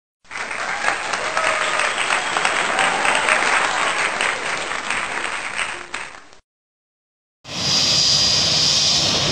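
Applause, many hands clapping, for about six seconds, then a short silence. About seven and a half seconds in, the steady noise of a jet airliner's engines begins, with a high whine over a low rumble.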